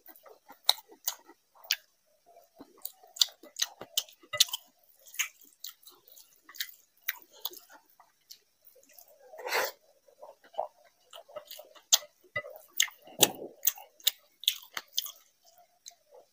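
Close-miked chewing of a mouthful of rice mixed with soft gourd curry: wet lip smacks and sharp mouth clicks in an irregular stream, with a few louder smacks around the middle and near the end.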